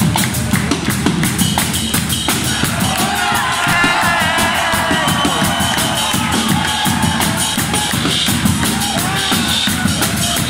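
Live band playing on: a fast, even cymbal pattern over drums and bass, with a gliding melodic line of bending notes from about three seconds in.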